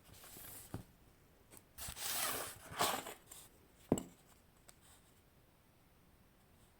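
Handling noises: rustling and scraping with a few clicks, the loudest a single sharp knock about four seconds in.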